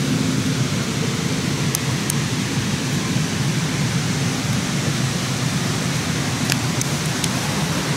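Steady rushing of a mountain creek: an even hiss of running water.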